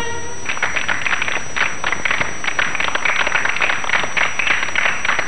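An audience applauding: a dense, even patter of many hands clapping, starting just as the last held note of a song dies away.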